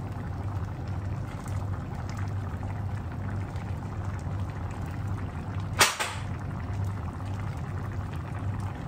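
Coconut-cream sauce bubbling at a simmer in a frying pan, with a steady low hum beneath. About six seconds in there is a single sharp snap.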